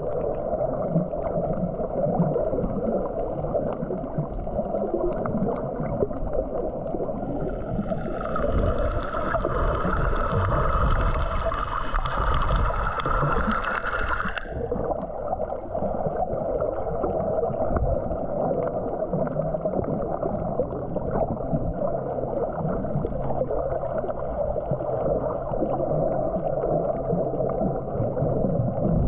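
Muffled underwater water noise picked up by a GoPro camera while snorkeling, a steady churning hush. In the middle a higher whine rises slowly for several seconds, then cuts off suddenly.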